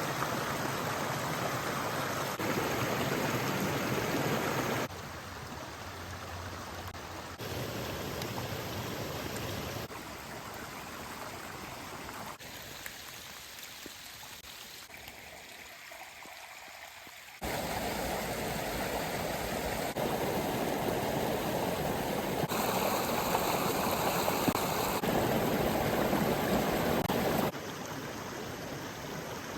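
Forest stream and small waterfalls running. The sound comes in short clips cut together, so its level and tone change abruptly every few seconds. It is quietest around the middle and louder in the second half.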